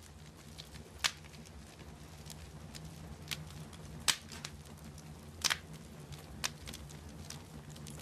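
Wood fire crackling, with sharp irregular pops over a low steady rumble. The loudest pops come about a second in, around four seconds in and about five and a half seconds in.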